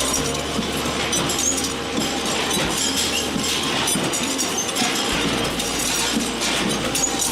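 Dense, continuous clattering and clinking of hard pieces from factory machinery at work.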